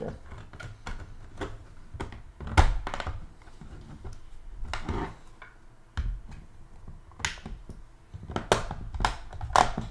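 Irregular sharp clicks and knocks of a small Raspberry Pi storage-server case being handled as its top clamshell is pressed on and snaps into place, the case knocking on a wooden desk. The loudest knock comes about two and a half seconds in, with a quick run of clicks near the end.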